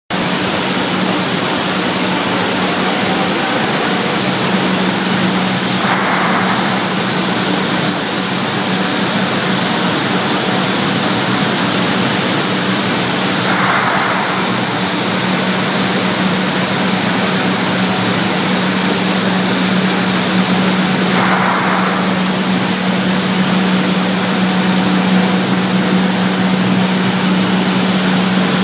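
Rice-processing plant machinery running: a loud, steady rush of noise over a low hum, with a short burst of higher noise about every seven and a half seconds.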